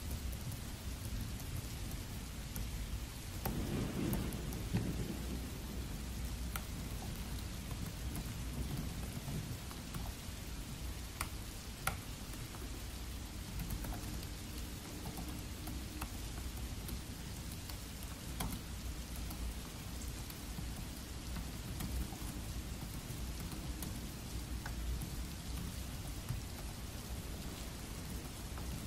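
Steady rain with low rumbling thunder that swells about four seconds in, and scattered light clicks of a Dell laptop's keys being typed on.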